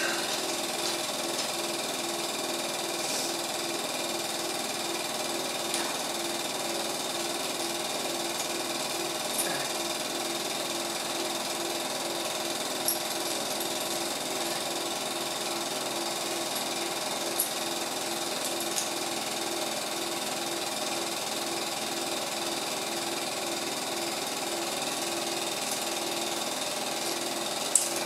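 Cine film projector running, its film-advance mechanism making a steady mechanical chatter with an even rhythm, and a few light clicks, the sharpest near the end.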